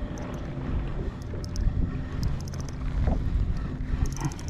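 Wind buffeting the microphone over open water, a steady low rumble, with short runs of quick high clicks about two and a half seconds in and again near the end.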